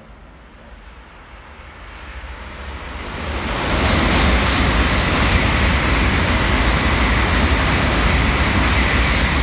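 N700A Shinkansen bullet train passing through a station at speed without stopping: a rushing noise of wheels and air that swells over the first few seconds, then stays loud and steady as the long train goes by, with a faint steady high tone on top.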